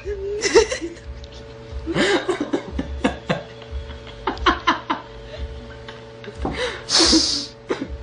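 Laughter and chuckling in several short, breathy outbursts, the longest about seven seconds in, over a steady low hum.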